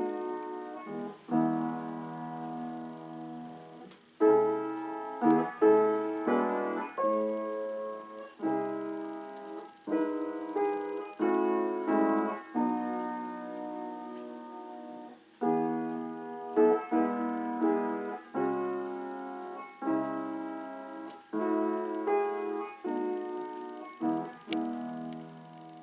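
Solo piano music: slow chords and phrases with struck notes that ring and decay, fading out at the end.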